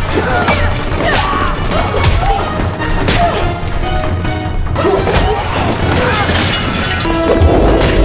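Fight-scene soundtrack: a driving action score with the hits and crashes of a staged fist-and-baton fight laid over it, several sharp blows spread through it.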